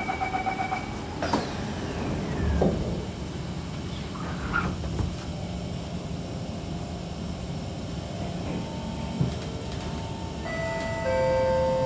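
Kawasaki C151 metro train departing: the door-closing chime beeps at the start, the doors shut with a knock about a second in, and the train pulls away with a low rumble. Steady tones from the traction motors come in and grow stronger near the end.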